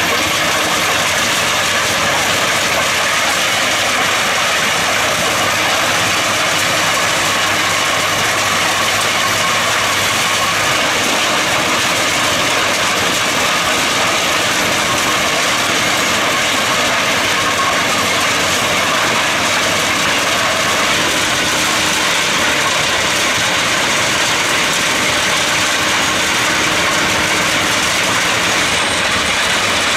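Railway ballast regulator working along the track, clearing surplus ballast from the centre of the track: its diesel engine runs under load as the ballast stones are shifted. The result is a loud, steady mechanical din.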